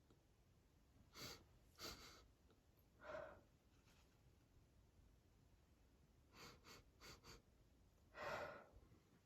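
A person sniffing and breathing through an irritated, allergic nose: two sniffs, a sighing breath about three seconds in, a quick run of four sniffs, then a longer, louder breath in near the end.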